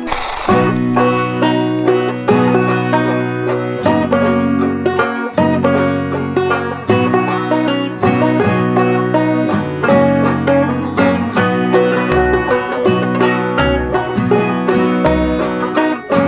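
Background music: fast plucked banjo and guitar in a bluegrass style, with a deeper bass pulse coming in about twelve seconds in.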